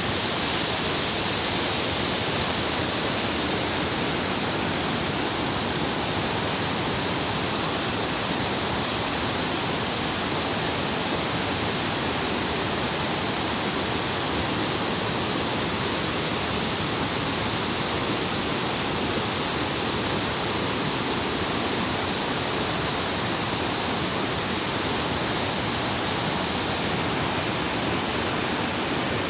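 Water pouring through a dam's open spillway radial gates, a loud steady rush with no breaks.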